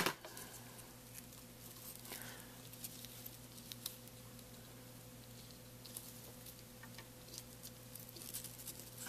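Faint scattered ticks and light rustles of small paper flower petals being picked up and pressed into place by fingers on a tabletop, over a low steady hum.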